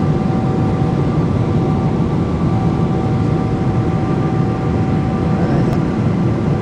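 Airliner cabin noise: a loud, steady roar of engines and rushing air, with a couple of faint steady whining tones above it.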